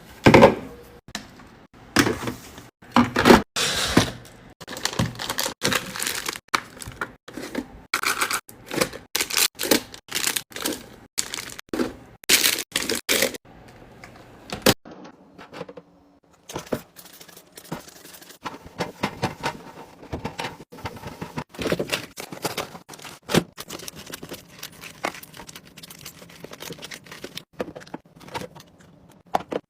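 Plastic packaging crinkling and tearing, with many irregular clicks, taps and scrapes of containers and packets being handled while a fridge is restocked. There is a short pause about halfway through.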